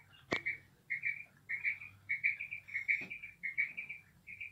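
Female quail calling: short chirping notes in quick clusters, repeated over and over. There is a sharp click about a third of a second in.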